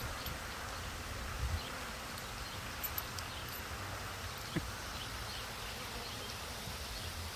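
Swarm of Italian honey bees buzzing in the air around an open hive, a steady hum of many wingbeats from bees displaced during installation. A few faint clicks and a low wind rumble on the microphone in the first second and a half.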